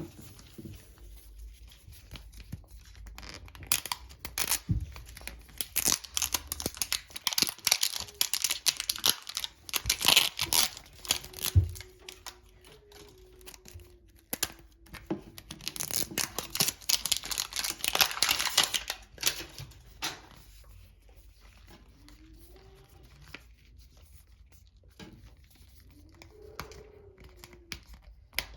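Plastic wrapper of a Mini Brands surprise ball being torn and crinkled open by hand, in spells of crackling and rustling that are busiest through the first two-thirds and fainter near the end.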